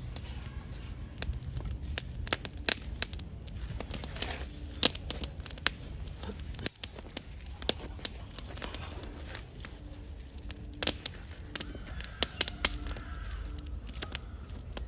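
Wood campfire of branches burning, with irregular sharp crackles and pops.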